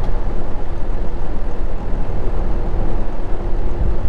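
Semi truck cab noise at highway speed: a steady low rumble of engine and road, with a faint steady hum joining about halfway through.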